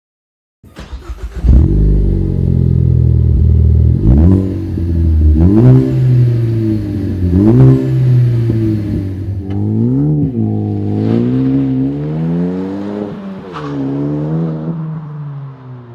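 Car engine cranking briefly and starting, then revved in a series of blips, each rising and falling in pitch, before settling and fading out near the end.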